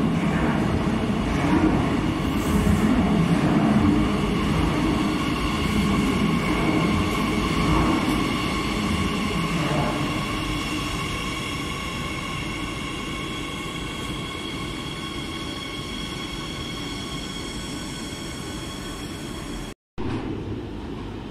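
Madrid Metro 8000-series train running into a station: wheels rumbling on the track, loudest in the first several seconds, then easing off, with a steady high multi-tone whine from the electric traction equipment. Near the end the sound cuts off abruptly and gives way to the rumble of another train approaching.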